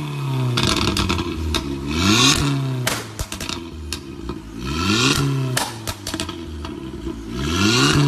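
Fiat Punto Abarth's 1.4-litre turbocharged four-cylinder, breathing through an aftermarket exhaust, revved three times while standing still, each rev climbing and falling away. Sharp pops and crackles from the exhaust come as the revs drop.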